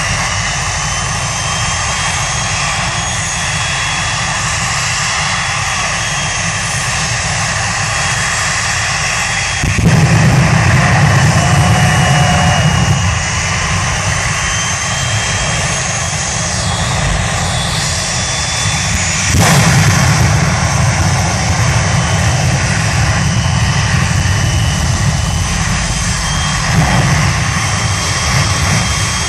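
Jet engine of a jet-powered school bus running with a steady whine, surging louder and deeper about ten seconds in and again about twenty seconds in.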